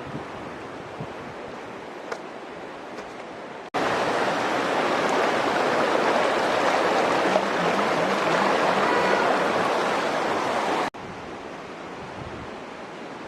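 Waterfall rushing steadily. About four seconds in, the sound jumps abruptly much louder, then drops back just as abruptly about eleven seconds in.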